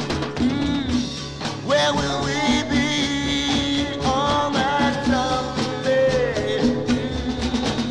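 Instrumental passage of a folk-rock recording: drums keeping a steady beat under a melodic line that slides up and down in pitch.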